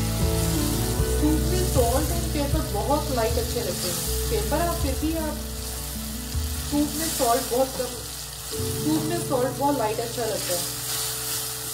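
Sliced button mushrooms sizzling in olive oil and butter in a nonstick kadhai, stirred now and then with a silicone spatula, under instrumental background music.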